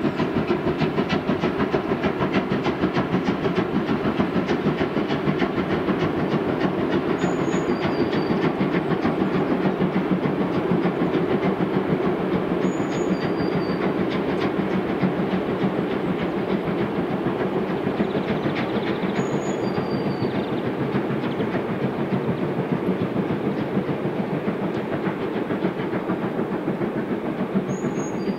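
Class 52 steam locomotive 52 8154-8 working hard with a train, its exhaust a rapid, steady chuffing that runs on without a break.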